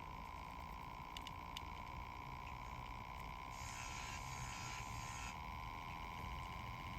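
Homemade mini top-loading washing machine spinning its empty drum: a steady motor whine that creeps slightly up in pitch over a low rumble, with a stretch of hiss from about three and a half to five seconds in.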